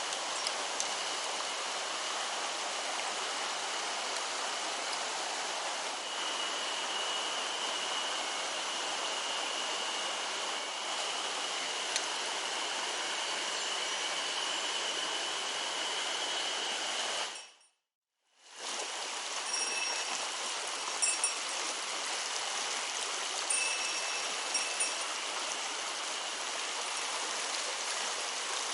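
Mountain stream running steadily, a constant even hiss of flowing water. The sound drops out completely for about a second a little past the middle, where the recording cuts.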